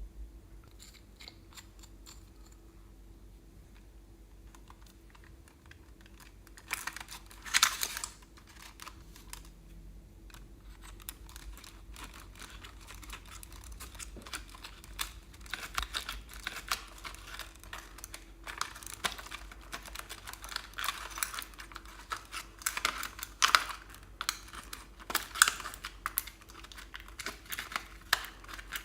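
Glossy slime being mixed and worked by hand, giving a run of small sticky clicks and pops from trapped air. A short louder cluster of crackles comes about seven seconds in, and the clicking grows busier through the second half.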